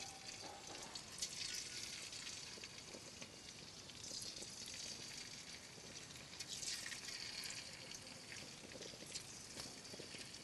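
Tofu frying in hot oil, a faint steady sizzle with small crackles.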